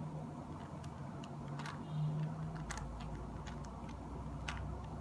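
Rubik's cube layers being turned by hand through an algorithm: a run of irregular, light plastic clicks over a low steady hum.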